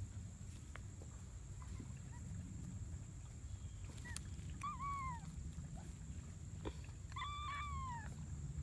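A cat meowing twice, softly: a short falling meow about four seconds in and a longer arched one about seven seconds in.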